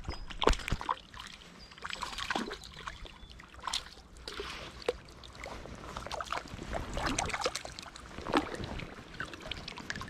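Hooked smallmouth bass thrashing at the water's surface as it is played in and landed: irregular splashes and sloshes, the loudest about half a second in.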